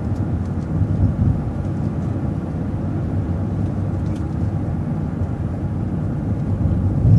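Transit bus driving along a street, its engine and tyre noise a steady low rumble heard from inside the cabin.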